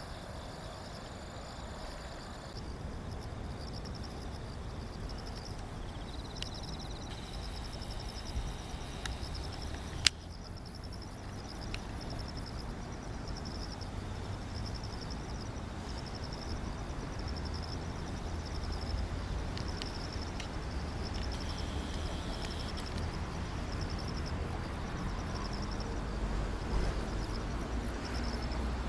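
Insects chirping in a steady pulsed rhythm, about one high chirp a second, over a continuous low rumble. There is a single sharp click about ten seconds in.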